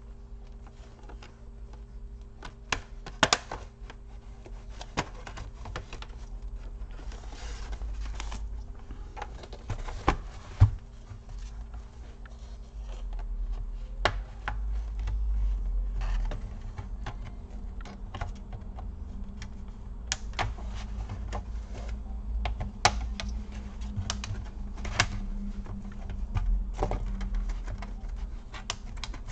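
Plastic snap-clips of an Acer Nitro AN515-54 laptop's bottom cover clicking loose as the cover is pried up along its edge, with irregular sharp clicks and small plastic knocks. The loudest snaps come about 3 and 10 seconds in, over a steady low hum.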